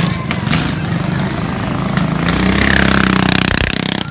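Small petrol engines of lawnmower carts running, one growing louder over the second half, with a few sharp clicks.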